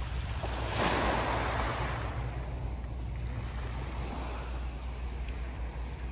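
Small waves washing onto a pebble beach: a swell of surf about a second in and a smaller one about four seconds in. Under it, a steady low rumble of wind on the microphone.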